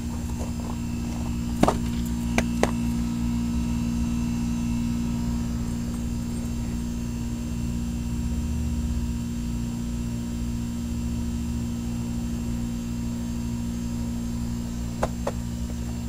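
Iced-over 1988 Heil heat pump outdoor unit running with a steady electrical buzzing hum while its fan blades are frozen in place and cannot spin: the unit has failed to defrost. A few light knocks sound about two seconds in and again near the end.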